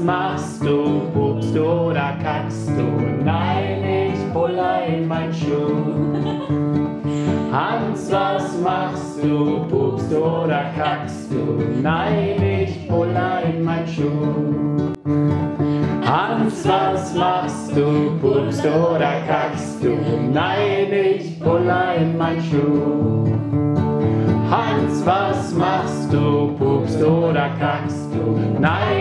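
Acoustic guitar playing with a group of voices singing together, an Indian children's mantra chanted as a song.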